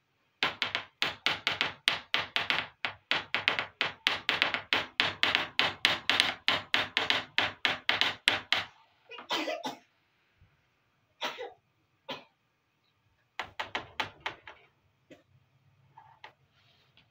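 Small hard plastic toy kitchen pieces clicking and tapping as they are handled: a fast run of sharp clicks, about five a second, for over eight seconds. A couple of short scrapes follow, then another brief run of clicks.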